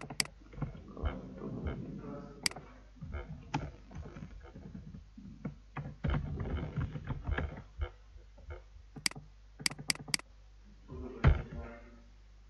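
Computer mouse clicks and keyboard keystrokes, scattered sharp clicks with a quick run of four about nine to ten seconds in.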